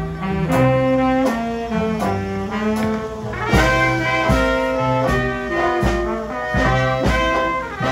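Small trad jazz band playing, with clarinet, alto saxophone and trumpet lines over banjo and upright bass and a steady beat.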